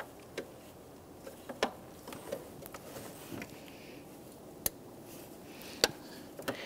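Scattered light plastic clicks and taps from a hand fitting an electrical fan connector and its wiring harness clips, with a few sharper snaps among them.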